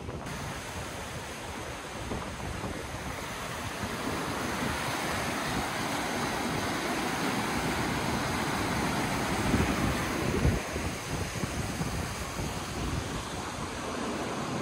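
Whitewater rushing through a man-made concrete rapids channel, a steady wash of water noise that grows louder a few seconds in. Wind buffets the microphone with a few low thumps about two-thirds of the way through.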